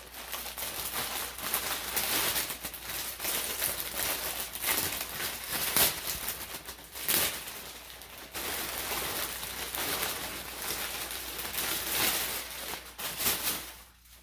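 Clear plastic poly bag crinkling and rustling as a football jersey is pulled out of it: an irregular run of crackles with a few sharper, louder ones.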